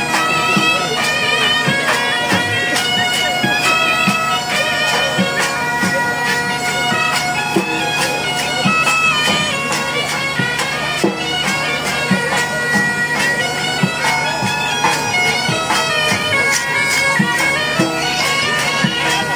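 Bagpipes playing a lively dance tune over steady drones, with drum strokes underneath.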